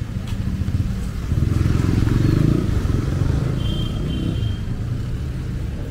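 A motor vehicle engine running close by, swelling to its loudest about one and a half to three seconds in and then easing off as it passes, over a steady hiss of rain.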